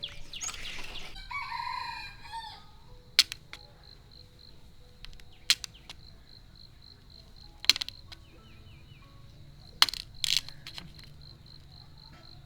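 A rooster crows once, about a second in. Then come sharp single knocks every two seconds or so, a blade striking bamboo as it is chopped and split.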